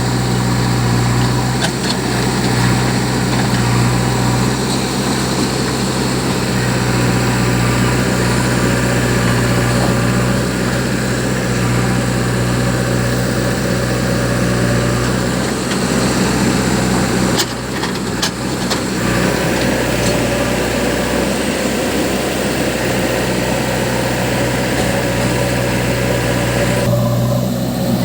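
Heavy diesel engine of a JCB backhoe loader running steadily at work, a strong low hum throughout, with a brief dip in the sound about two-thirds of the way through.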